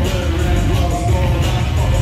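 Loud music with heavy bass, sustained melodic notes and a steady beat.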